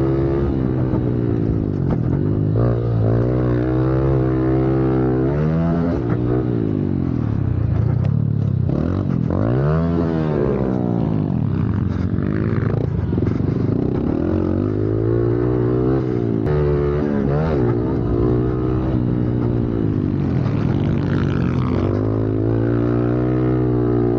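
Honda CRF110F pit bike's small single-cylinder four-stroke engine, ridden hard in a race, revving up and down over and over as the throttle opens and closes through the gears.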